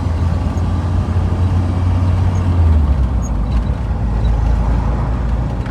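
Car engine pulling in second gear at about 2,000 rpm, heard as a steady low drone that drops slightly in pitch about three seconds in. It carries a noise the owner is trying to place: lifter tick, piston slap, rocker arms or another exhaust leak.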